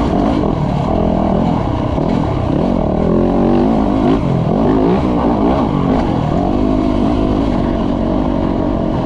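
Dirt bike engine revving up and down over and over as it is ridden, its pitch rising and falling every second or so.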